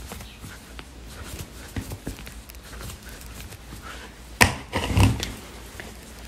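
Faint rustling of hands working a crochet hook through cotton yarn, with a sharp knock a little after four seconds in and a duller thump about five seconds in.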